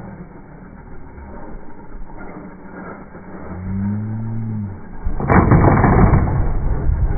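RC short-course truck jumping off a ramp, heard in slowed-down slow-motion audio. A low motor whine rises and falls in pitch while it is airborne. About five seconds in, a sudden loud landing on asphalt is followed by loud, continuous tyre and motor noise.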